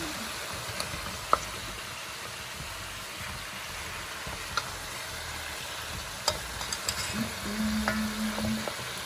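Beef ribs sizzling steadily as they brown in a metal pot. A metal fork turning them clicks a few times against the meat and the pot.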